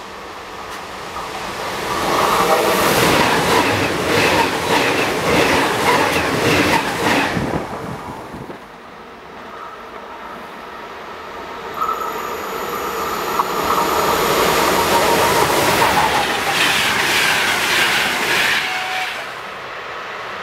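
A train passing at speed through a station: a loud rush with a rhythmic clickety-clack of the wheels, building about two seconds in and fading after about eight. About twelve seconds in a second loud stretch starts with a steady whine and ends with more wheel clatter.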